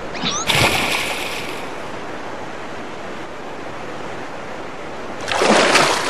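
Cartoon sound effect of rushing waterfall water, a steady hiss. About half a second in, a short rising whistle is followed by a loud splash as the wooden barrel goes over the falls. Another loud rush of noise comes near the end.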